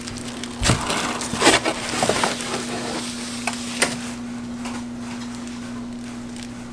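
Cardboard and plastic packaging being handled and opened, with irregular crackles and scrapes that cluster in the first couple of seconds and one sharp click about four seconds in.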